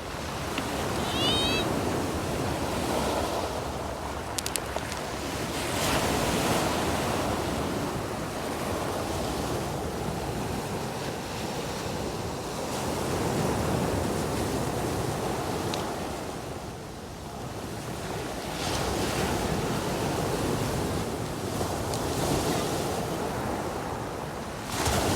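Ocean surf breaking on the shore, the wash of the waves swelling and fading every few seconds, with some wind on the microphone.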